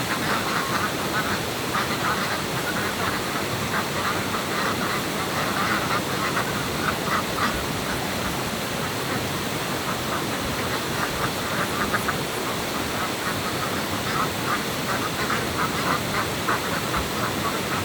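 Domestic ducks quacking over and over in clusters, over the steady rush of stream water.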